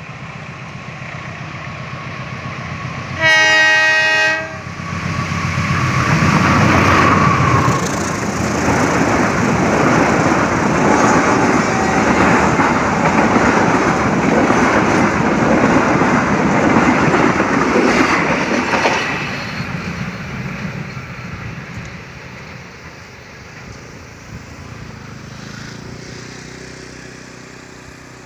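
Locomotive-hauled passenger train passing at speed. The locomotive sounds its horn once for about a second and a half, about three seconds in. The locomotive and a long rake of coaches then rush past with a clatter of wheels over the rail joints, and the sound fades away after about twenty seconds.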